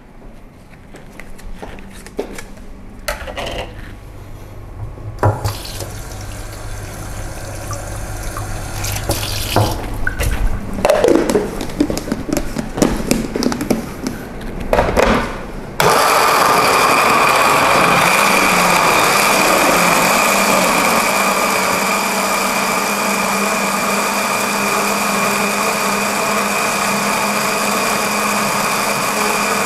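Handling knocks and clicks from a plastic blender jug and lid, then about halfway through an electric blender switches on. Its motor runs steadily, grinding chopped chilies, shallots, ginger, galangal and lemongrass into a spice paste.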